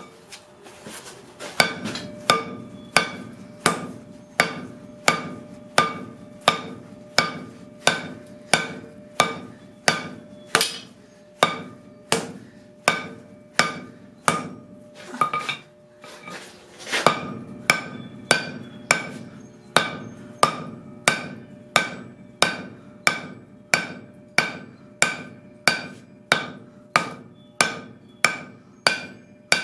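Steady hammer blows, a little under two a second, on a hot steel bar being upset against the anvil. Each strike rings out, and there is a short pause about halfway through.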